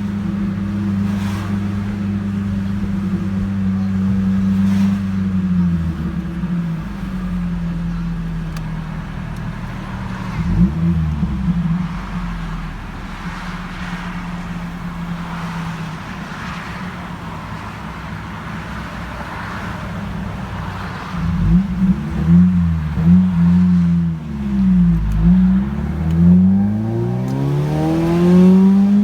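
2000 Ford Focus ZX3's four-cylinder engine running through a freshly installed aftermarket catback exhaust. It holds a steady raised idle and settles lower about six seconds in, with one quick blip of the throttle. Over the last several seconds it is revved again and again in quick rises and falls.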